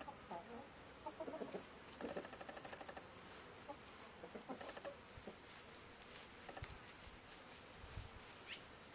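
Chickens clucking softly, short low clucks scattered throughout.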